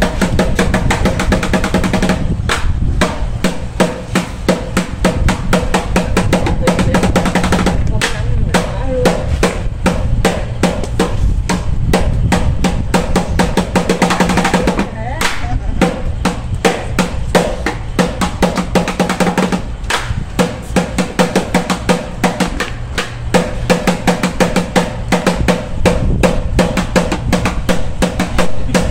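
Drumming for a monkey dance: a fast, unbroken run of loud drum strokes and rolls.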